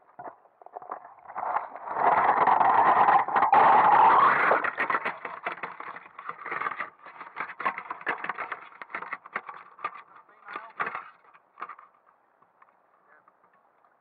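Drop net and camera being pulled up out of the water: a loud rush of splashing water for a couple of seconds, then a scatter of drips and small taps as the net hangs dripping, dying away about twelve seconds in.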